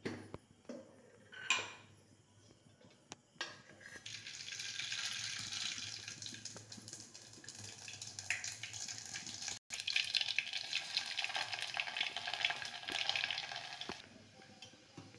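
Hot oil sizzling and crackling in a steel pot, louder from about ten seconds in as whole cumin seeds fry in it for tempering, and stopping shortly before the end. A few sharp clinks of steel utensils come first.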